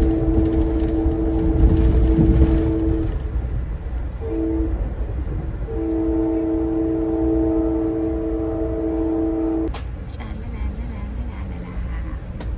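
Train horn sounding a steady two-note chord: a long blast, a short blast about four seconds in, then another long blast that cuts off near ten seconds. Under it runs the low rumble of the moving train, heard from inside the carriage.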